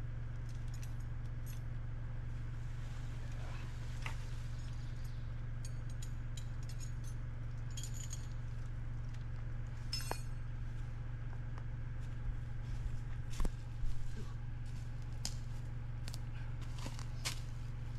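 Tractor engine idling with a steady low drone, under scattered light metallic clinks and a couple of louder knocks about three-quarters of the way through.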